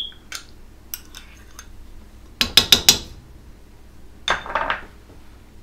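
A spoon clinking against a glass bowl and pot as sour cream is knocked into mashed potatoes. There are a few light taps, then a quick run of about five sharp clinks about two and a half seconds in, and another short cluster a little after four seconds.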